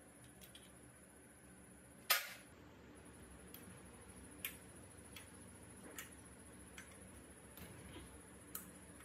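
Hand tools working on small engine parts: one sharp knock about two seconds in, followed by a run of lighter clicks and taps roughly once a second, over a faint steady high whine.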